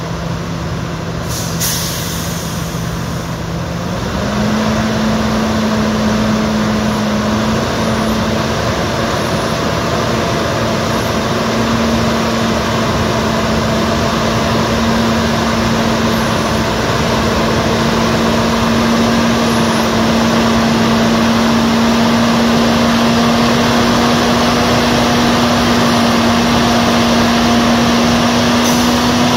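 Heavy diesel power pack of a multi-axle modular transporter running under load. Its pitch steps up about four seconds in and keeps rising slowly as the engine speeds up. A short hiss of air comes near the start.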